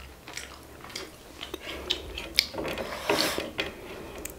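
Fingers wiping and scraping the last smears of curry and rice off plates: a run of small clicks and rubs, denser and louder in the second half.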